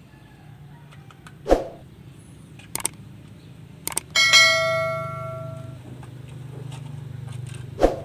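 A single bright metallic ring, like a small bell struck once, sounding near the middle and fading over about a second and a half. A few sharp knocks and clicks fall before and after it, over a low steady hum.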